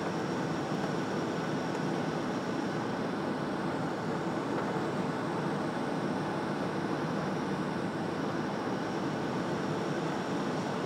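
Steady cabin noise inside a Boeing 757 airliner descending: the turbofan engines' hum blended with the rush of air past the fuselage, with a faint steady whine on top.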